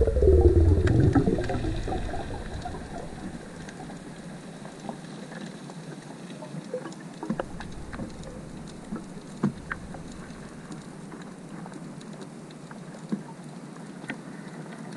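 Background music fades out over the first couple of seconds. Then comes underwater ambience: a faint steady crackle with scattered sharp clicks, as heard through an underwater camera's housing.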